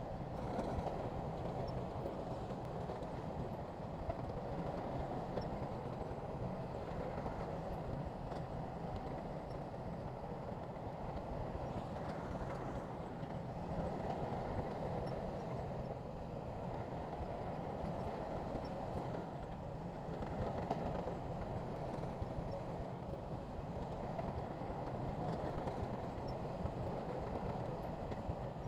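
Heavy diesel earthmoving machinery running steadily, a continuous engine rumble without breaks.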